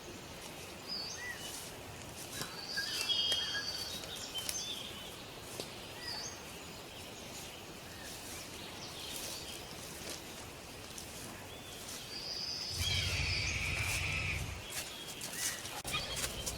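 Birds calling and chirping in repeated short phrases over steady outdoor background noise. A louder low drone joins for about two seconds near the end.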